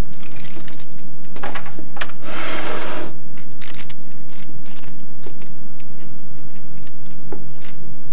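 Scattered clicks and rattles of handling, with one scraping rustle about two and a half seconds in, over a steady low electrical hum.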